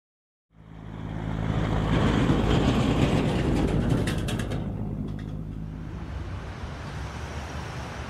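A motor vehicle driving: engine rumble and road noise fading in from silence, swelling about two seconds in, then easing into a steady drone.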